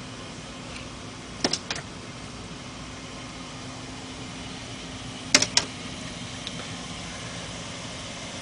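A female northern cardinal tapping at a window pane: two quick runs of about three sharp taps, about four seconds apart, as it attacks its own reflection in the glass. A steady low hum underneath.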